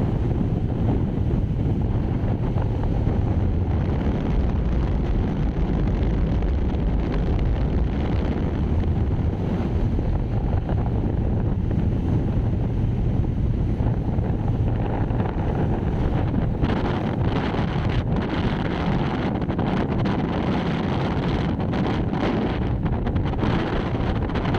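Strong wind of up to about 35 knots buffeting the microphone in a steady low rumbling roar, with a faint low hum underneath.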